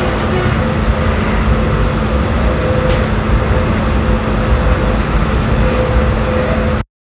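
Passenger train interior while travelling: a steady low rumble from the running train with a faint steady hum and a single short click about three seconds in. The sound cuts off abruptly near the end.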